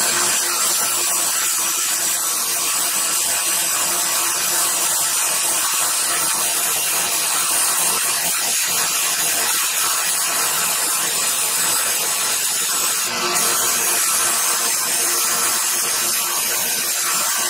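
Narrow-belt sander running with a steel chisel pressed against the abrasive belt: a steady grinding hiss of steel being ground away.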